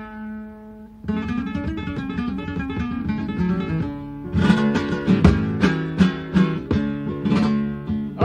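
Flamenco guitar playing a tangos introduction. One note rings and fades over the first second, then picked notes follow, and about four seconds in it turns to louder, rhythmic strummed chords with sharp strokes.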